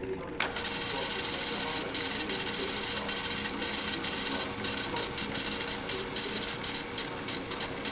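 Opened cassette player switching on with a click about half a second in, then a loud hiss and crackle from its output that keeps dropping out for instants, over a steady hum.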